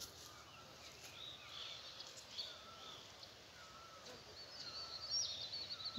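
Faint birdsong: several birds giving short chirps and whistles over a low steady background hiss, with a longer high twittering phrase near the end.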